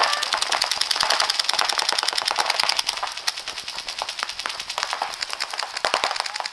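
Several paintball markers firing rapidly, a dense stream of sharp pops. It thins out to scattered shots about three seconds in.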